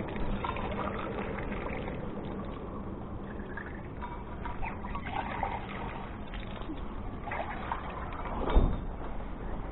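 River water flowing, a steady rushing trickle, with small scattered clicks and one dull low thump near the end.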